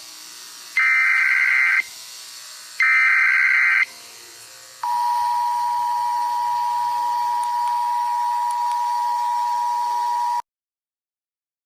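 Emergency Alert System alarm: two harsh, roughly one-second bursts of digital header data, then a steady two-tone attention signal that holds for about five and a half seconds and cuts off suddenly.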